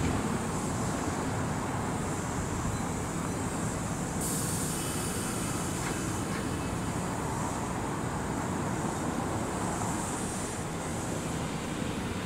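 Kintetsu electric train rolling slowly into the station: a steady rumble of wheels and running gear. A high hiss grows stronger about four seconds in.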